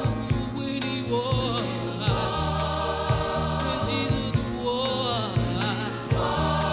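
Background music: singing voices over sustained chords with a steady beat.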